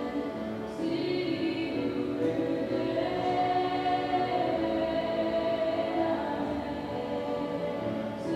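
Background music with a choir of voices singing long held notes, the melody shifting to a higher note a few seconds in.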